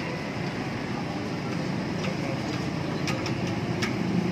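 Steady street and traffic noise at a roadside food stall, with a few sharp clicks about three to four seconds in.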